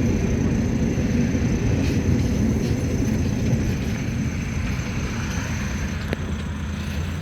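Mercedes-Benz T1 minibus on the move, heard from inside the cabin: a steady low engine and road rumble, easing slightly in the second half, with a light click about six seconds in.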